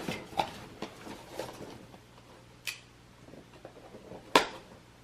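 Scattered clicks and knocks of stroller parts and packaging being handled during assembly, with a sharp, loud click about four and a half seconds in.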